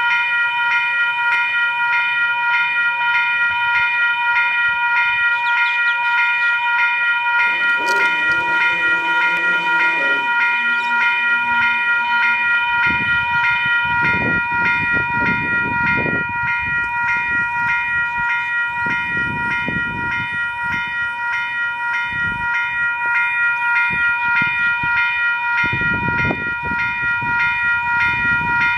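Level crossing warning bells ringing continuously in a quick repeating pattern. About a third of the way in, a lower stepped hum sounds while the boom gates come down, and low rumbling swells come and go in the second half.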